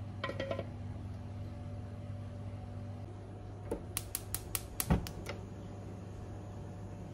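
A steady mechanical hum, like a fan or running appliance. A short clatter comes just after the start, and a little past halfway there is a quick run of about eight sharp clicks with one heavier thump among them.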